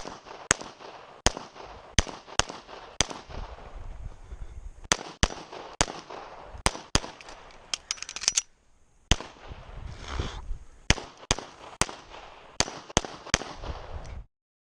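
Handgun shots fired in a fast string during a practical shooting stage: more than twenty sharp reports, many in quick pairs, with a short break a little past halfway.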